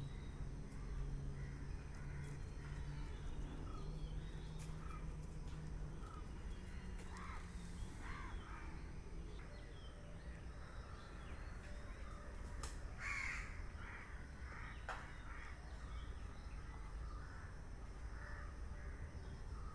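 Scattered short bird calls, some arching in pitch, over a low steady background hum.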